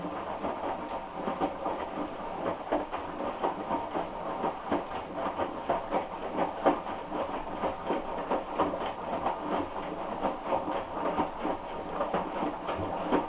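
Hoover DYN11146PG washing machine drum tumbling laundry during the first rinse of a cotton cycle: a continuous run of irregular sloshes and soft knocks as the wet load drops and water splashes.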